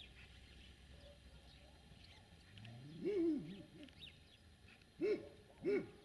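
Distant animal calls over a faint background: one drawn-out call that rises and falls about three seconds in, then two short calls about half a second apart near the end.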